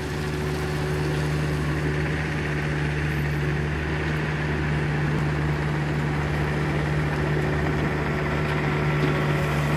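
A steady low engine-like hum, growing slightly louder toward the end.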